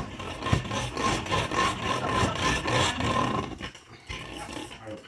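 Wooden rolling pin rolled back and forth over whole wheat bread dough on a wooden counter: a rasping rub with each stroke that eases off after about three and a half seconds.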